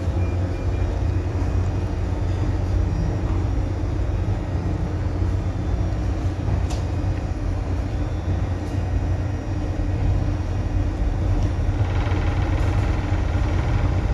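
Steady low drone of a ship's running engine and machinery, heard inside the wheelhouse, with a few faint clicks.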